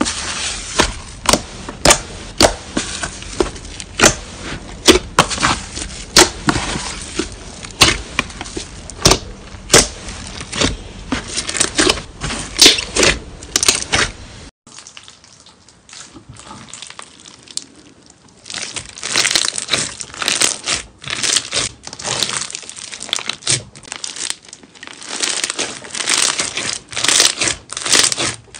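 Hands squishing and pressing slime, a steady stream of sticky pops, squelches and crackles. The sound drops away to softer squishing about halfway through, then a green slime is kneaded with dense crackling again.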